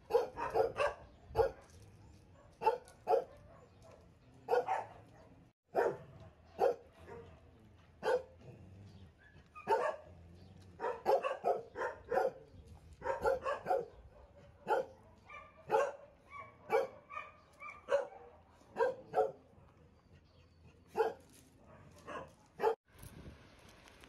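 Dogs barking over and over: short, sharp barks, often one or two a second, sometimes in quick runs of several.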